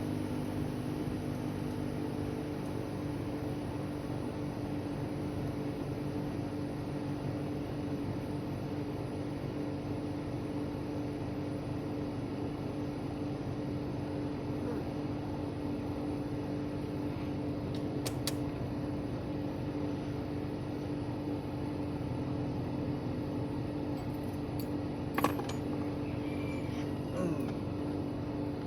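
1997 Toyota Camry's air-conditioning blower running steadily inside the cabin with the engine idling, a constant hum. A few small clicks sound over it, twice sharply in the second half.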